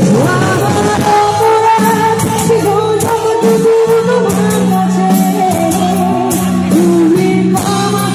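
Live band playing loudly with a singer carrying the melody over a steady drum beat.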